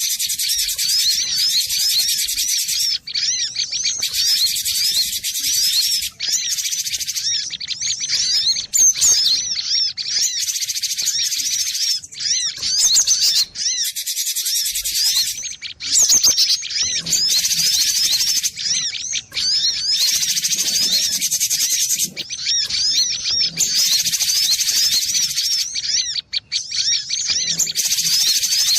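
Cinereous tit (gelatik batu) singing: a fast, unbroken stream of high chirping notes, with a few short breaks.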